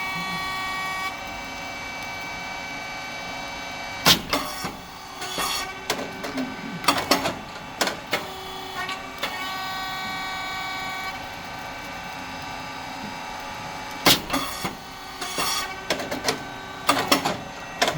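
Rice cake popping machine running its production cycle: a steady hum from the motor and hydraulic pump, broken twice, about ten seconds apart, by a loud sharp pop as the heated moulds open and the rice cakes puff. Each pop is followed by a few seconds of knocks from the moving mould and feeding plate.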